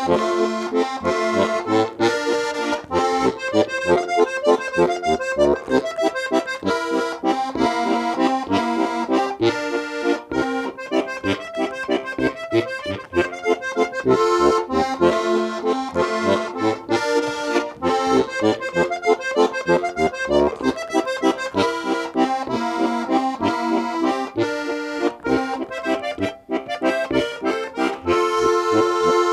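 Instrumental background music, a brisk tune of quick, rhythmic notes.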